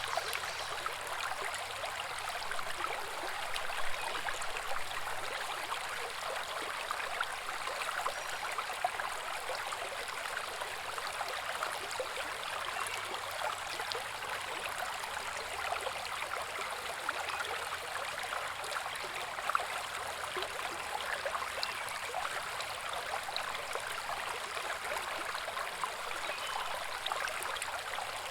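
Small woodland brook babbling steadily over rocks, a continuous splashing rush with many small droplet ticks.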